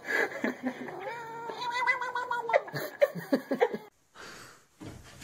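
Grey shorthair cat giving a long, drawn-out meow while being stroked, followed by a few short clicks. The sound cuts off suddenly about four seconds in.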